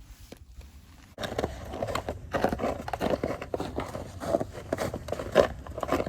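Footsteps of hikers crunching along a trail of snow and ice, starting abruptly about a second in and going on at a steady walking pace of two or three crunches a second.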